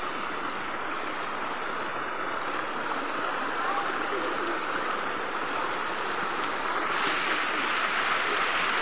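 Shallow stream running over rocks and stones: a steady rushing of water that grows a little louder near the end.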